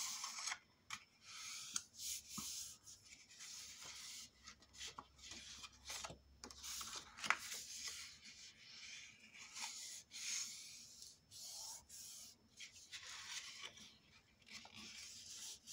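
Sheets of white cardstock rustling and rubbing as they are slid, folded and pressed flat by hand, with scattered light ticks and one sharper tick about seven seconds in.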